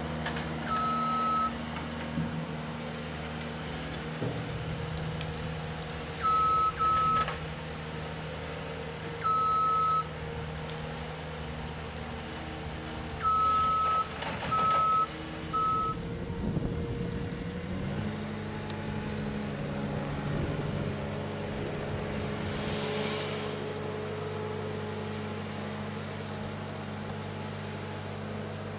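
Caterpillar 257B compact track loader's diesel engine running steadily, with its reversing alarm sounding in short, loud beeps of uneven length several times over the first sixteen seconds. About eighteen seconds in, the engine note steps up and holds.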